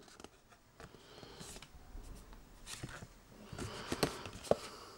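A small paper card being handled and turned over in the hands: faint rustling of paper with a few short crisp crinkles and taps.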